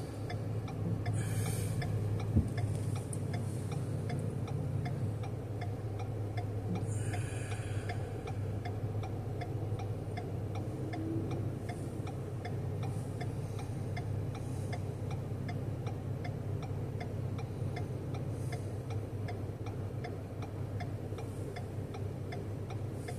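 Steady, evenly spaced ticking inside a stopped car over the low hum of its idling engine, with a couple of brief hisses from passing traffic or air.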